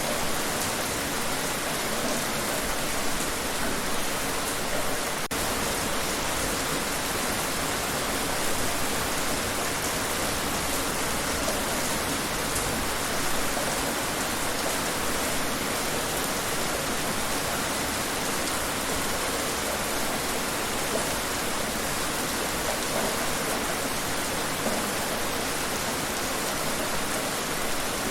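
Steady rain falling outdoors, an even hiss of drops that holds at the same level throughout.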